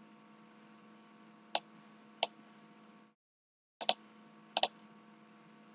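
Computer mouse clicks: two single clicks, then two quick double clicks, over a faint steady hum.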